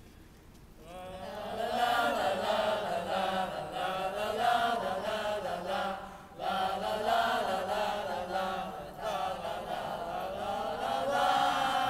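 Voices singing a chant with no clear words, starting about a second in and pausing briefly about six seconds in before going on.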